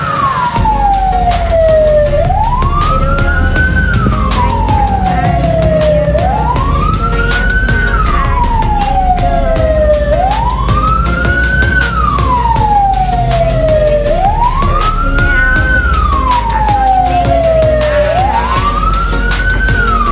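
A siren wailing, its pitch rising for about two seconds and falling for about two, about five times over. Beneath it runs a steady low rumble with many short clicks.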